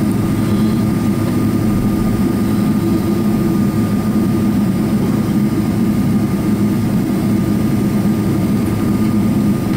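Steady cabin noise inside a Boeing 777-300ER airliner: a low, even rumble from its GE90 engines and airflow, with a faint steady high whine over it.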